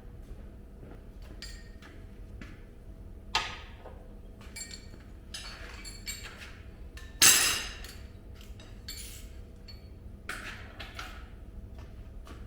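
Metal tools and parts clinking and scraping against one another, with two sharp metallic clanks about three and seven seconds in, the second the louder.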